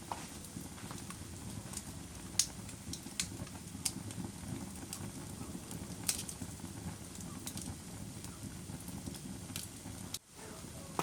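Wood fire burning in a fireplace: a steady low rumble of flames with irregular sharp crackles and pops, the loudest about two and a half and six seconds in.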